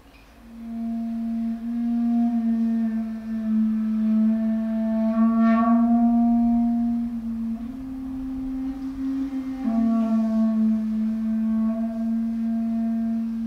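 Clarinet playing a long, held low note that begins about half a second in. The note swells and brightens in the middle, moves up a step for about two seconds, then settles back to the first pitch.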